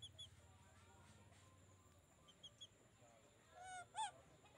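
A chicken gives two short squawking calls near the end, the second louder, with a few faint high chirps earlier.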